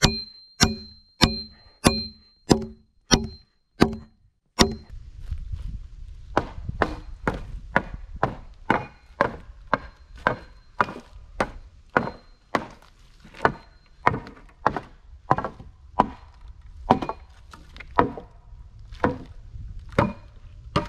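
Axe blows on wood, struck in a steady rhythm. For the first four and a half seconds each blow rings, about one every 0.7 seconds. After that comes a run of duller chopping blows, about two a second, over a low steady background noise.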